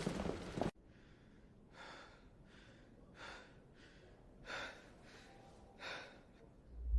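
Faint breathing: six soft breaths, alternating stronger and weaker, spread over a few seconds. They follow a louder noisy sound that cuts off suddenly under a second in.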